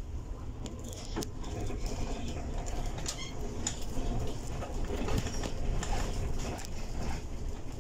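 Cabin noise of a Mercedes-Benz Citaro G C2 articulated city bus on the move: a steady low rumble of engine and road, with frequent small rattles and knocks from the interior fittings. A brief high chirp comes about three seconds in.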